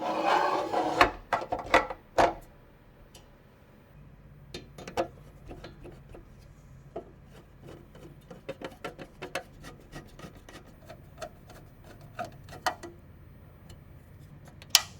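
Hands working on PC hardware: a loud scraping rub at the start and a few knocks, then scattered small clicks and taps, with one sharp click near the end.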